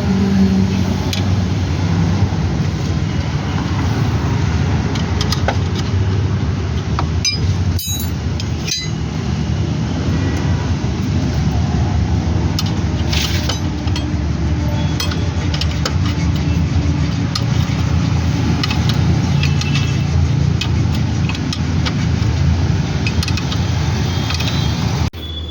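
Steady road traffic noise with scattered sharp metallic clinks of hand tools.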